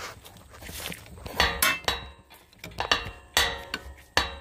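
Metal hand tools clinking and knocking: several sharp metallic clinks with a brief ring, three in quick succession about one and a half seconds in, then single ones near three and a half seconds and just before the end.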